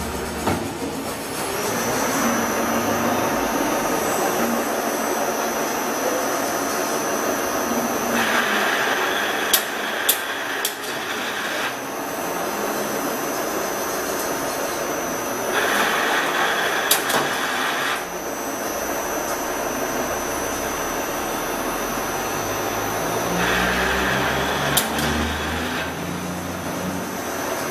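CNC lathe running its program: a steady machine hum with a high whine, a stronger hiss that comes in three times for a few seconds each, and a few sharp clicks.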